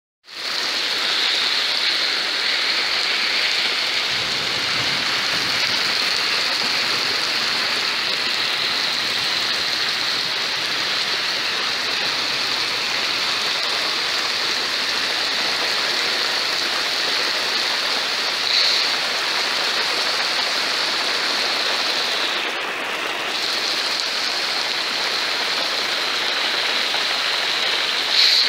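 Heavy rain falling in a steady downpour, a dense even hiss that barely changes, with a brief louder splash about two-thirds of the way through.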